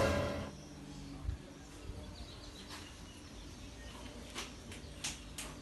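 Quiet background with faint bird chirps and a few soft, scattered clicks and taps, after a loud sound fades out in the first half second.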